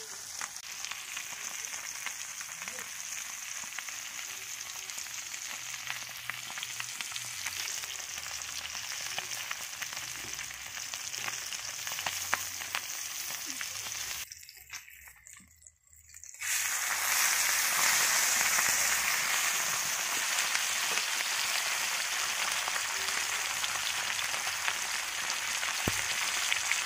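Whole spice-coated fish frying in hot oil in a pan, a steady sizzling hiss with fine pops. About halfway through it drops out for a couple of seconds, then comes back louder.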